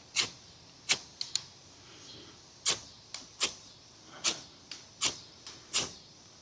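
The spine of an Ozark Trail 11-inch fixed-blade knife scraped down a ferrocerium rod to throw sparks: about a dozen short, sharp scrapes at an uneven pace.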